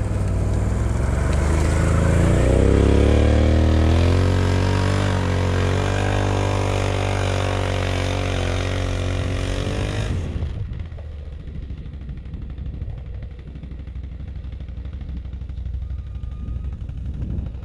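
ATV engine revving hard under load on a full-throttle run up a slippery snow hill. Its pitch rises over the first few seconds and holds high, then the throttle drops off suddenly about ten seconds in and the engine runs on low and rough.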